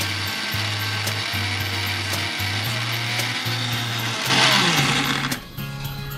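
Electric mixer-grinder (mixie) motor running at high speed, grinding onion into a paste. It gets briefly louder, then is switched off about five seconds in, its pitch falling as the motor spins down.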